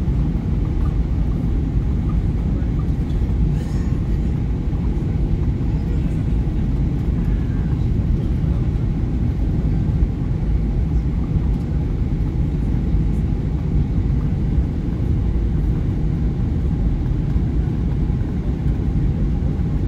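Steady low rumble of an airliner's cabin noise, its engines and airflow heard from inside the cabin on final approach, with no change in level throughout.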